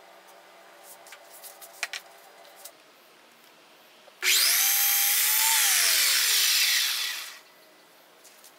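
A couple of sharp clicks, then a sliding compound miter saw starts up about four seconds in and cuts through a strip. Its motor whine climbs, holds, and winds down as the blade spins to a stop about three seconds later.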